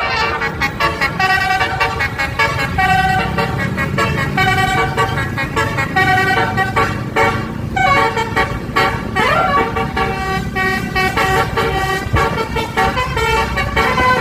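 Multi-tone 'basuri' telolet bus horn playing a melody, stepping from note to note, with a rising slide about two-thirds through. A low engine rumble runs underneath.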